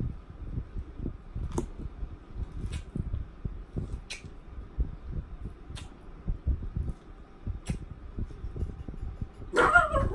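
Close-up eating sounds: salad being chewed, with a fork now and then clicking sharply against a glass salad bowl. A short voice-like sound comes near the end.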